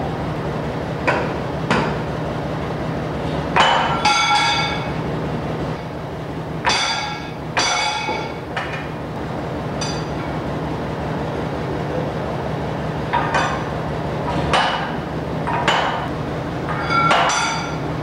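Hammer blows on steel: about a dozen irregular strikes, each ringing briefly, over a steady low hum.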